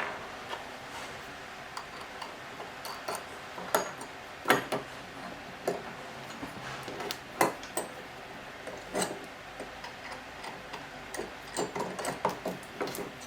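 Irregular light clicks and taps of small metal parts being handled, as M4 bolts are fitted into a lens-disassembly tool.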